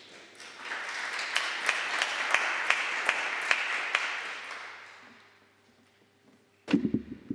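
Audience applauding: the clapping builds over about a second, holds, then dies away. A sudden thump near the end.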